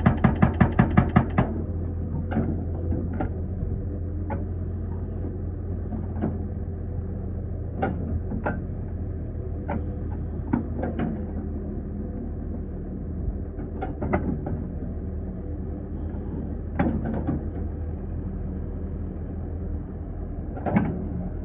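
Excavator's hydraulic breaker hammering rapidly, about six or seven blows a second, stopping about a second and a half in. After that the excavator's engine runs steadily, with scattered single metallic clanks and knocks.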